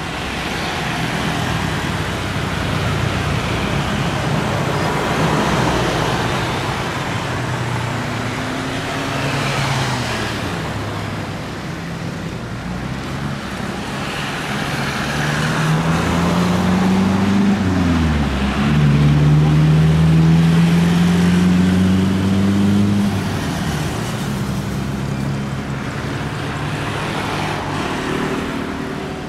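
Airbus A320-200's twin jet engines running at taxi power: a steady hum with a hiss over it, its tones rising in pitch about halfway through and loudest a little after the middle.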